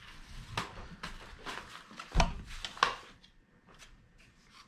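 Handling noise as the mini chainsaw is taken out and handled: rustling with a run of sharp clicks and knocks, the two loudest a little after two seconds in and just before three seconds, then quieter.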